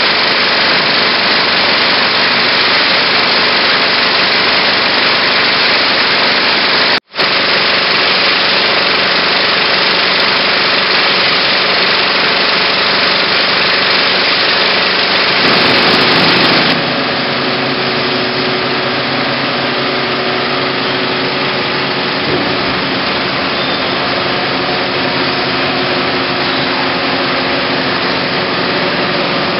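IMAX 15/70 film projector running: a steady mechanical whir with a low hum. It cuts out for a moment about seven seconds in, and becomes somewhat quieter a little past halfway.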